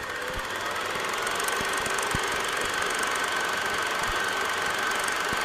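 A steady mechanical whirr and rattle that swells over the first second, with a thin steady tone above it and a few scattered sharp clicks.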